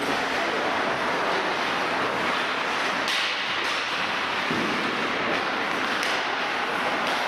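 Ice hockey in play: steady scraping noise of skates on the ice, with a few sharp clacks of sticks and puck.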